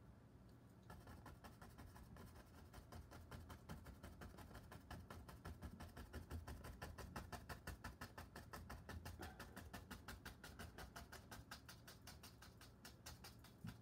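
Faint, rapid tapping of a chip brush dabbing oil paint onto a stretched canvas, an even patter of soft taps at several a second, starting about a second in.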